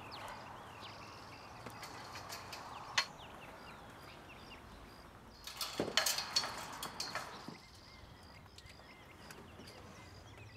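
Birds chirping, with short repeated high calls throughout. About three seconds in there is a single sharp click, and from about five and a half seconds a brief cluster of knocks and rattles.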